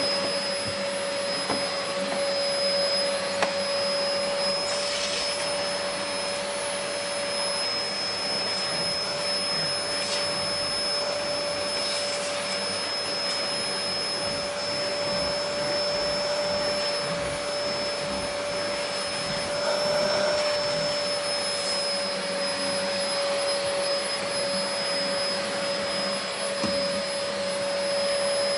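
Vacuum cleaner running steadily, a constant rushing whir with a steady hum and a high whine.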